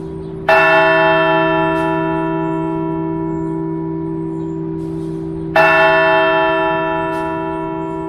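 Church bells of a chime of eleven hanging bells: two strokes about five seconds apart, each ringing out and slowly fading, over a steady hum of bells still sounding from before.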